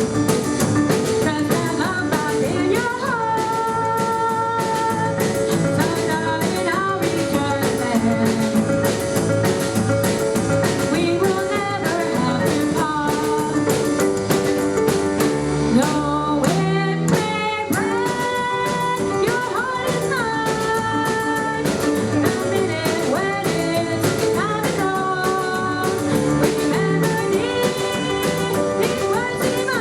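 Live rock 'n' roll band playing an instrumental break: drums, double bass and keyboard under a lead line of held, bending notes.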